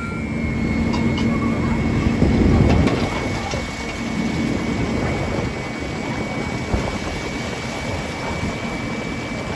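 JCB backhoe loader running while it tips a bucket of coal into a steam locomotive's bunker, the coal pouring and rattling down, loudest about two to three seconds in.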